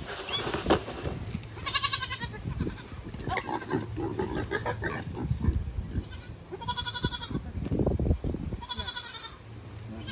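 Young goat bleating, a quavering cry about two seconds in and twice more near the end.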